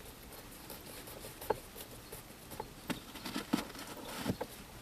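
Faint, scattered light clicks and taps as a screw is fitted and driven into the plastic lower steering column shroud.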